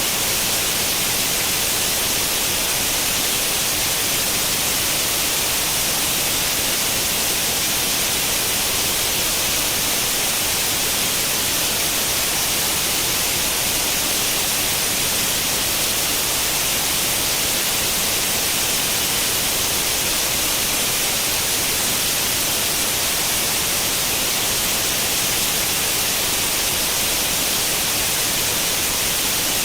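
Steady white noise, the hiss of a tube television's static with no channel tuned, loudest in the high treble and unchanging.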